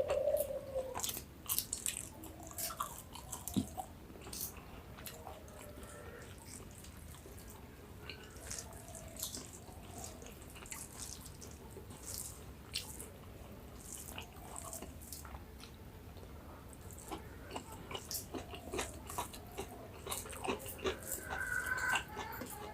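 Close-miked chewing and crunching of a rice-and-vegetable meal, with many quick wet mouth clicks and crackles.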